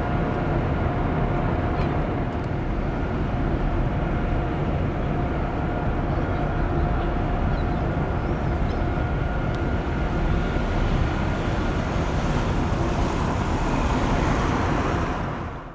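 Steady low outdoor rumble with a faint steady whine through the first half, fading out quickly at the very end.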